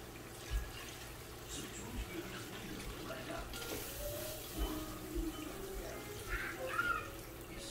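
Water poured from a bowl into a pot of curry on the stove, a brief run of pouring and splashing about three and a half seconds in, with small handling knocks.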